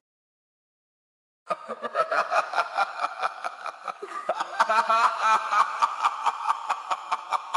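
Laughter sound effect: a quick run of 'ha-ha' pulses, about five or six a second, starting about a second and a half in after silence.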